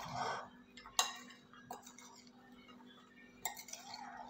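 Two metal spoons tossing pasta salad in a glass bowl: a soft scraping rustle of the food with a few sharp clinks of metal on glass, the loudest about a second in.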